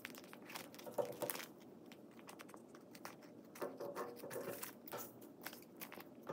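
Clear plastic contact paper with tissue paper sealed inside it, crinkling as it is handled and cut with scissors: a run of faint, irregular crackles and snips.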